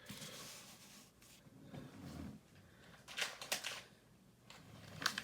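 Quiet handling of trading cards: soft rustles and light scrapes of cards being moved, with a few short, brighter rustles about three seconds in and again near the end.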